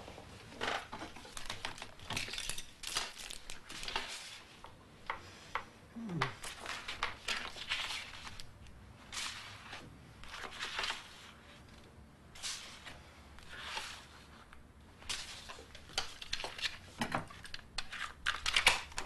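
Sheets of paper being shuffled and slid over one another by hand, in irregular rustles and crinkles. Near the end a plastic cassette case is handled, giving a few sharper clicks.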